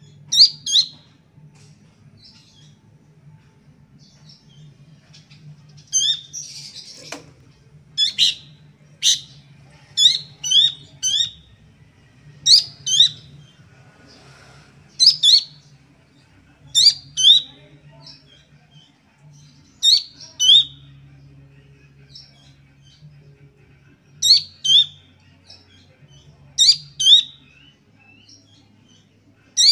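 Juvenile Horsfield's babbler (pelanduk semak) calling: short, sharp high notes, mostly in clusters of two or three, repeated every one to two seconds. There is a brief rustle and a knock about seven seconds in.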